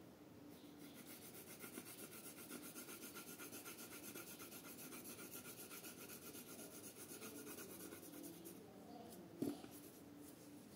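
Faint scratching of a colored pencil shading on paper in rapid, even back-and-forth strokes, which stop about eight and a half seconds in. A single short knock follows about a second later.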